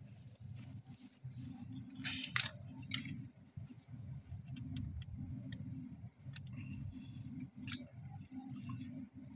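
Hard plastic clicks and clinks as an automatic pump pressure controller is turned by hand and screwed onto the outlet of a small electric water pump, with a cluster of knocks about two to three seconds in and a sharp click near the end. A steady low hum runs underneath.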